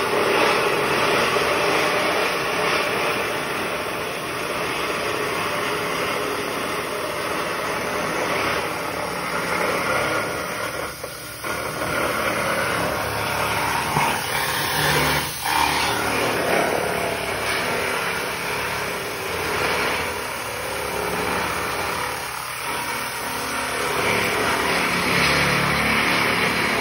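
Handheld power tool cutting a ribbed steel roofing panel, running steadily with short breaks about 11 and 15 seconds in.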